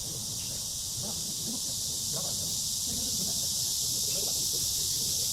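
Steady high-pitched insect chorus, with faint distant voices underneath.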